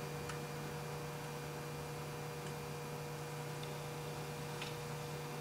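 Steady electrical mains hum over faint room hiss, with two faint ticks: one just after the start and one near the end.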